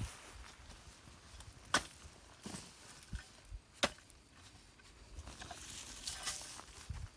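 Three sharp chopping knocks, roughly two seconds apart, with light rustling and scraping between them.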